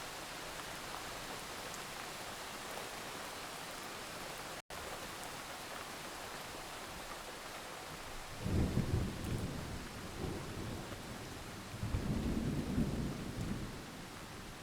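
Thunderstorm: steady rain hiss with two low rolls of thunder in the second half, one after about eight and a half seconds and another a few seconds later. The sound drops out for a split second about a third of the way in.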